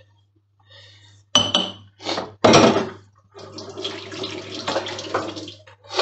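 A metal spoon clattering against dishes a few times, then a couple of seconds of running water as the spoon is rinsed.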